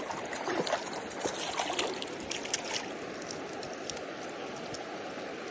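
Mountain trout stream flowing steadily, with a scatter of small splashes and ticks in the first few seconds that thin out after.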